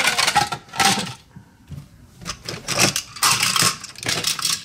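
Toy trains clattering and rattling against each other as a hand rummages through a plastic tub full of them. Irregular clicks and knocks, with a short lull about a second in.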